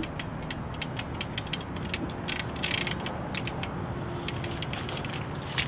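Fishing reel being wound in against the weight of a hooked fish, its mechanism clicking several times a second, over a steady low background rumble.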